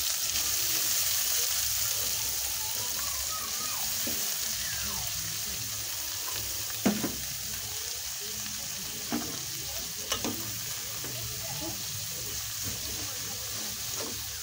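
Shredded cabbage and grated carrot sizzling in a steel pot of hot oil and margarine, a steady hiss that slowly dies down as the cold vegetables cool the pot. A few sharp knocks come in the middle.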